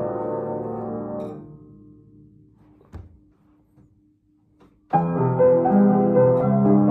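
Zimmermann upright piano playing a slow, gentle piece. A chord rings and dies away to near silence, a faint knock sounds about three seconds in, and the playing starts again abruptly about five seconds in with low bass notes under a melody.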